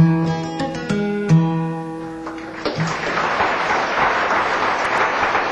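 Acoustic guitar picks the last few notes of a song, which ring out, and then audience applause breaks out about halfway through and keeps going.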